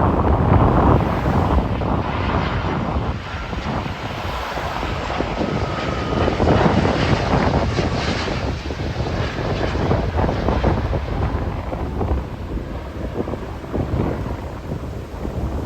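Airbus A330-300 airliner's jet engines on a landing approach, a steady rush of engine noise with a faint whine in the first half. Heavy wind buffets the microphone throughout.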